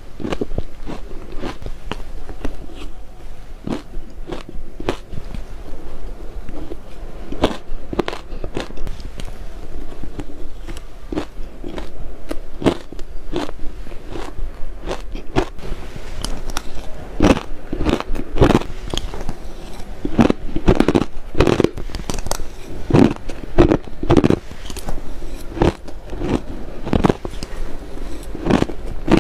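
Ice being bitten and crunched between the teeth close to the microphone: a run of irregular sharp crunches and crackles, coming faster and louder in the second half.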